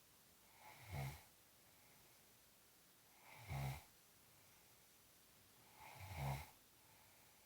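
Snoring: three short snores, evenly spaced about two and a half seconds apart, with near silence between them.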